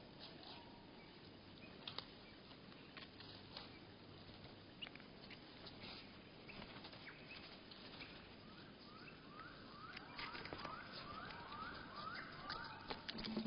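Wild birds at a seed feeder, slowed to a third speed so the sounds come out low and drawn out: scattered ticks and clicks, then from about nine seconds in a run of about eight repeated rising chirps.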